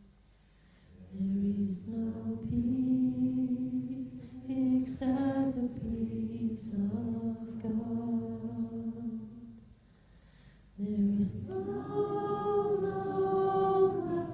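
Slow, meditative chant sung a cappella in long held notes, with brief breaks about a second in and again near ten seconds.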